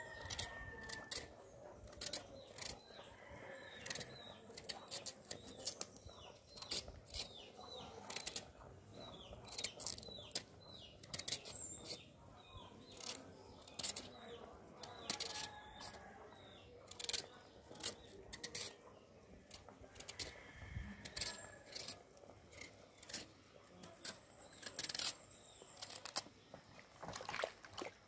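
Kitchen knife peeling a root vegetable by hand: short, sharp cuts of the blade through the skin, irregular, about one or two a second. Birds chirp faintly in the background.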